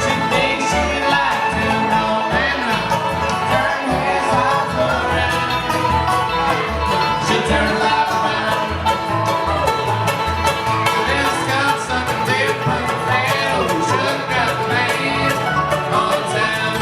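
Live bluegrass band playing dance music, with plucked strings over a steady bass beat.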